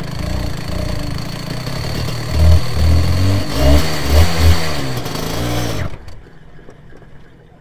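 250cc twin-cylinder two-stroke superkart engine, being run in, running and blipped through a series of short revs about halfway through, then cutting out suddenly about six seconds in.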